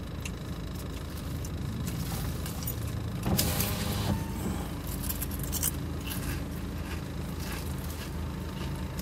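Car engine idling, heard from inside the cabin: a steady low rumble, with a brief louder, noisier swell about three seconds in.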